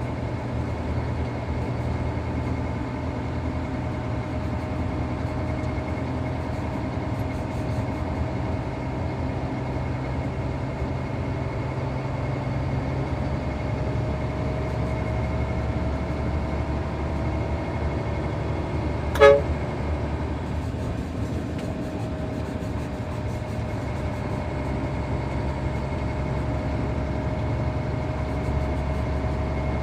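Heavy diesel machine engine running steadily under load, with a steady whine over the rumble. A short sharp toot-like blip cuts through about two-thirds of the way in.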